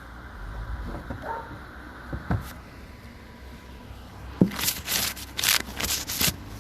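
Handling noises: a few soft knocks, then, about two-thirds of the way in, a quick run of rustling, scraping clatter.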